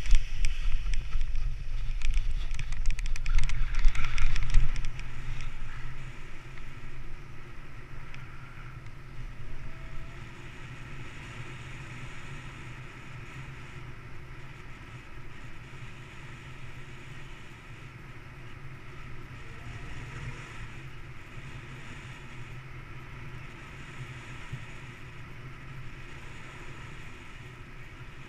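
Wind on the camera's microphone during a paraglider launch: loud and gusty for the first five seconds or so, then settling into a steadier, quieter rush of airflow as the paraglider flies.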